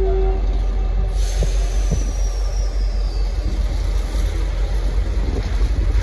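V/Line N class diesel locomotive and its carriages rolling slowly along a curved track, with a steady low rumble. About a second in, a thin high squeal from the train's running gear starts and slowly falls in pitch for about two seconds.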